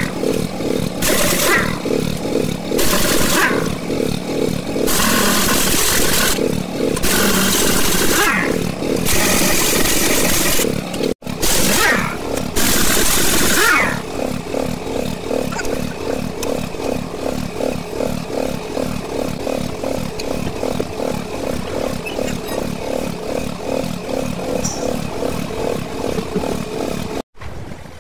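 Pneumatic impact wrench firing in repeated short bursts on a truck's wheel nuts, about one burst a second, over a steady chugging engine. From about halfway, only the engine chugs on at an even pace.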